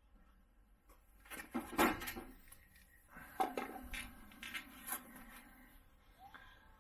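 Scattered knocks and clatter, loudest about two seconds in, with a steady low hum for a couple of seconds in the middle.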